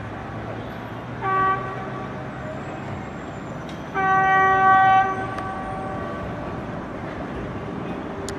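Electric locomotive horn sounding twice over the steady rumble of trains running on the line: a short toot just over a second in, then a louder blast lasting about a second, about four seconds in. Both are one steady note.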